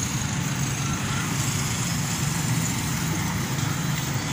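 A motor vehicle engine running steadily, a constant low hum under a wash of hiss.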